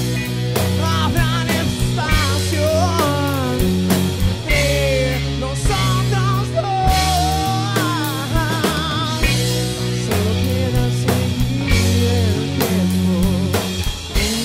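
Rock ballad played live by a band: a man sings a wavering, held-note melody over drum kit with cymbals, bass and guitar. The voice drops out about nine and a half seconds in while the band plays on.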